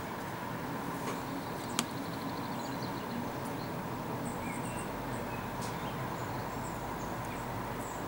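A great spotted woodpecker pecking at bark: a few isolated sharp taps, the loudest about two seconds in, over a steady background hiss. Faint high-pitched chirps and trills of small birds come in the second half.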